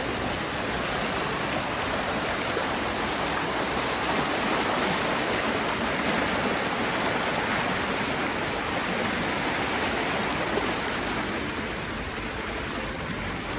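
River water flowing, a steady rushing.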